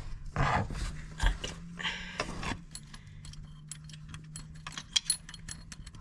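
Rustling handling noise, then many light metallic clicks and clinks of small metal hardware as exhaust mounting bolts are fitted by hand, with a faint steady low hum underneath.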